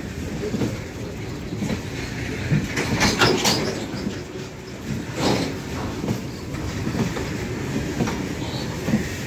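Fully loaded BOXN open goods wagons rolling past at close range: a steady rumble and clatter of steel wheels over the rail joints. Louder metallic clatter comes about three seconds in and again a little after five seconds.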